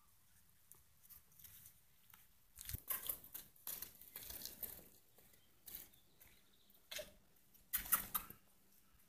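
Scuffing footsteps on stone paving in several short, uneven bursts, the loudest near the end.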